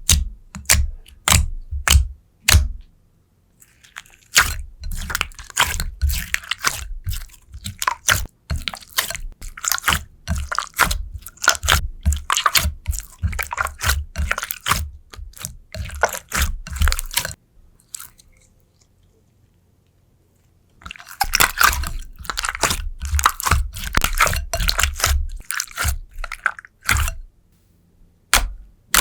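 Slime being squeezed and pressed by hand, making sharp pops and crackling, squishing sounds. A few separate pops come first. Long runs of dense crackling follow, broken by a pause of a few seconds about two-thirds of the way through, and a few pops come near the end.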